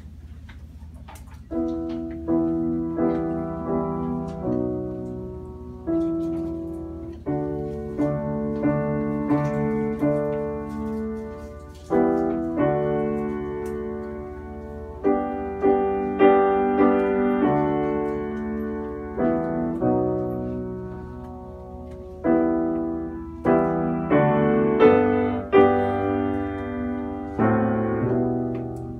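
Grand piano played solo: chords struck one after another about once a second, each left to ring and fade, starting about a second and a half in.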